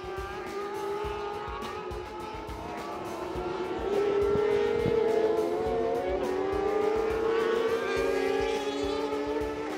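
Engines of middleweight racing sport bikes running at high revs, the pitch rising and falling as they accelerate and shift. It gets louder from about four seconds in as two bikes pass close by.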